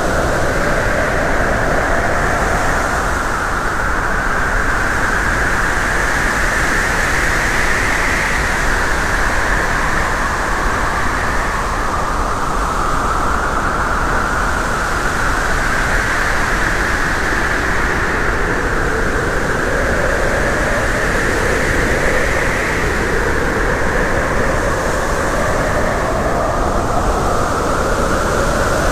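Loud, steady road and wind noise of a moving vehicle, with a tone that slowly climbs and drops again several times over the stretch.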